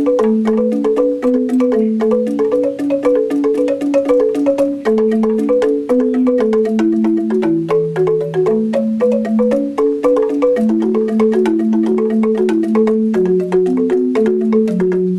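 Balinese rindik, a bamboo xylophone, played solo with mallets. A quick, steady run of struck bamboo notes steps up and down over a slower, lower line of notes.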